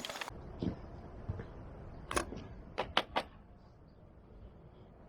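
A few sharp clicks and clacks of small hard objects being handled, with a quick run of three near the middle.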